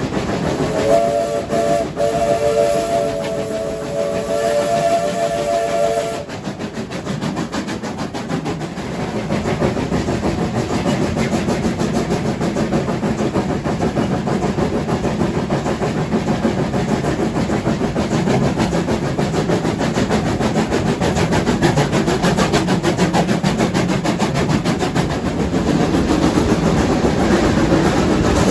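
A steam locomotive's whistle sounds one long chord of several notes at once for about five seconds, then stops. The locomotive runs on with its exhaust beating and the carriage wheels clattering on the rails.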